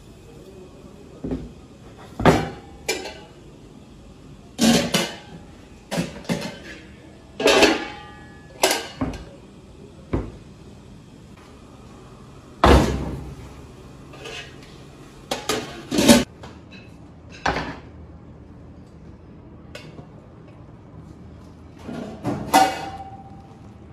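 Metal pot and kitchen utensils clanking and knocking as they are handled: about twenty sharp hits at irregular intervals, one near the end ringing briefly.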